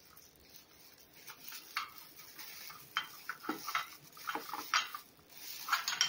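Plastic wrap crinkling and rustling as it is pulled off an espresso machine's portafilter and filter basket, with a few light clicks and clinks of the metal parts.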